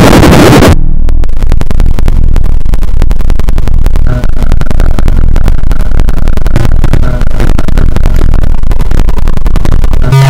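Extremely bass-boosted, clipped and distorted remix audio at full volume. A bright, harsh burst in the first second gives way to a crackling, distorted low rumble.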